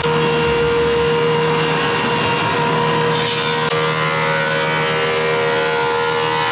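Over-under double-sided planer running loud and steady, its two 30 hp cutterhead motors and feed belt planing a spalted maple slab top and bottom in a single pass. Several steady held tones sit over the noise of the cut, which gets brighter about three seconds in.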